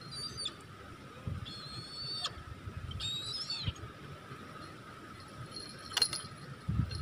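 Brahminy kite giving three short, high calls over a steady insect drone. About six seconds in there is a single sharp knock as the kite lands on its wooden perch.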